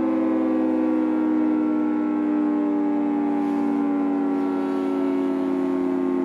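Federal Signal 2T22 two-tone outdoor warning siren sounding a steady, dissonant chord during a test, recorded from very close so the audio is overblown.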